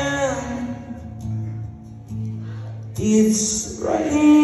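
Live rock band with acoustic and electric guitars and a singer: a sung line falls away in the first second, the band drops to a quieter stretch of low held notes, then comes back in loudly about three seconds in, and the singing resumes near the end.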